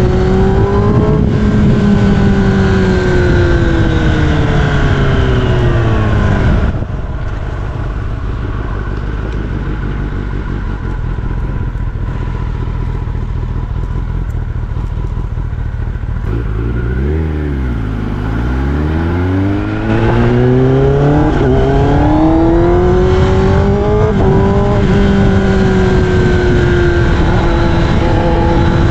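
Kawasaki ZX-10R inline-four through an Austin Racing aftermarket exhaust, ridden in traffic. The revs fall as it slows and the exhaust drops abruptly to a quieter note for about ten seconds. Then the revs dip and climb and it pulls away loud again, with a gear change a few seconds later.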